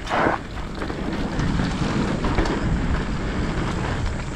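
Mountain bike riding down a dirt trail: a steady rush of wind on the microphone mixed with the tyres rolling over dirt, with a short louder burst of noise right at the start.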